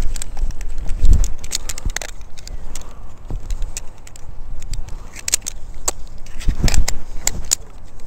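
Metal climbing hardware, carabiners and a rope device on a tree climber's harness, clinking and rattling in irregular clicks as ropes are handled. Low thumps on the head-mounted microphone about a second in and again near seven seconds.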